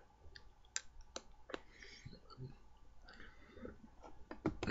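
Faint mouth sounds of a man drawing on a tobacco pipe: three sharp clicks in the first second and a half, then soft puffs of air.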